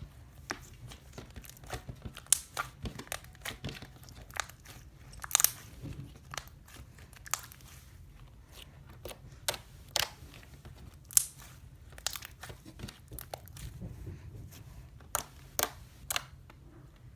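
Slime mixed with crunchy Hot Cheeto pieces being squeezed and kneaded, crackling and crunching in irregular sharp snaps, a few a second, some louder than the rest.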